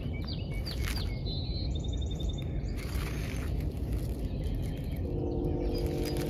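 Small birds chirping briefly over a steady low rumble; about five seconds in, a steady hum with a few held tones starts up.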